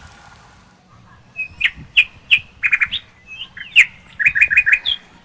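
A songbird singing: sharp chirps and quick runs of three or four rapid notes, starting about a second and a half in.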